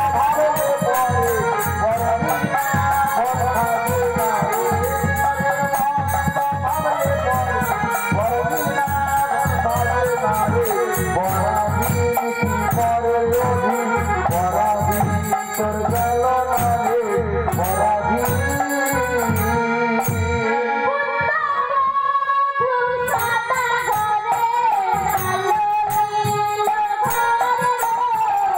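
Live traditional folk music from a stage play: a wavering melody over steady drum strokes and jingling percussion. The drums stop for about three seconds near the end while the melody holds, then come back in.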